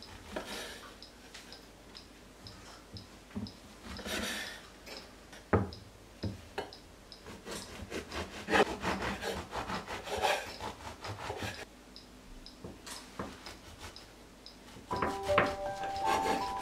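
A knife sawing and chopping through slices of white sandwich bread onto a wooden cutting board, in irregular scraping strokes and light knocks. Gentle background music comes in near the end.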